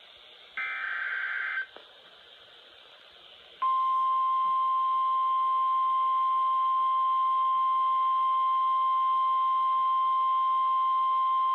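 NOAA Weather Radio alert signalling over a hissing receiver: a burst of warbling SAME digital data tones about half a second in, lasting about a second, then from about three and a half seconds in the loud, steady single-pitched 1050 Hz warning alarm tone that announces a new alert.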